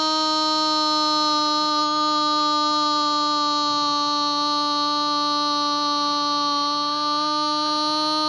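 A radio football commentator's goal cry: one long, unbroken 'gooool' shouted and held on a steady high pitch.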